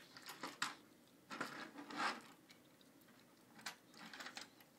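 Faint, scattered plastic clicks and taps as a toy telephone is handled and knocked against a computer tower's case.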